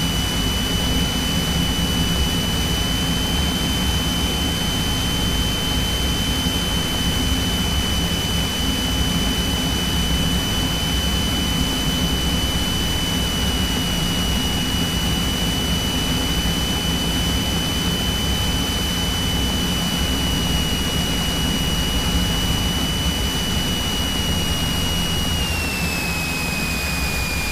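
Cessna 172's piston engine and propeller running steadily, heard inside the cabin, with a constant high whine over the engine drone. Near the end the whine drops slightly in pitch.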